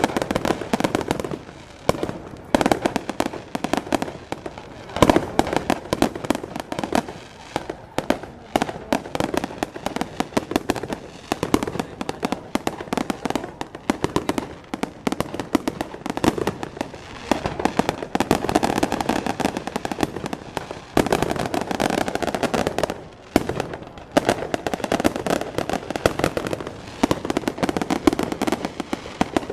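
Fireworks display: dense, rapid crackling and popping throughout, with a few louder single bangs standing out, the strongest about five seconds in.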